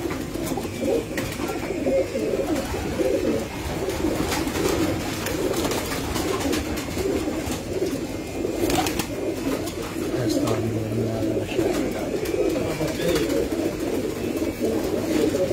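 Many domestic pigeons cooing at once, a steady overlapping chorus, with a few sharp clicks among it.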